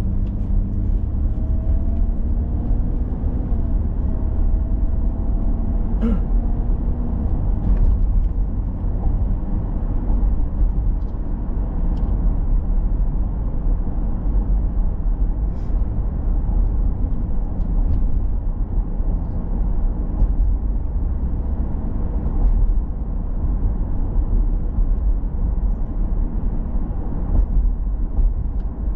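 Car driving, heard from inside the cabin: a steady low rumble of engine and road noise, with a faint hum in the first few seconds and a single click about six seconds in.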